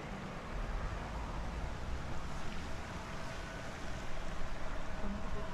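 Gusty wind buffeting the microphone: a rough, uneven low rumble over a steady rushing hiss, growing stronger about half a second in.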